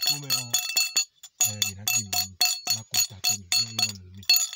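A man chanting an invocation in a low voice, with a small metal bell ringing in quick, rhythmic strokes about five times a second, pausing briefly about a second in.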